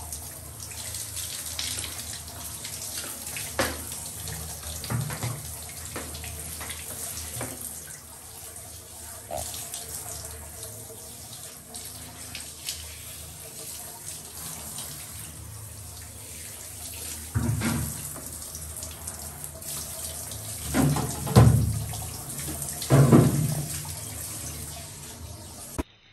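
Handheld shower head spraying a steady stream of water over a wet dog in a bathtub, a continuous hiss and splatter of running water. Three louder thumps come in the last third.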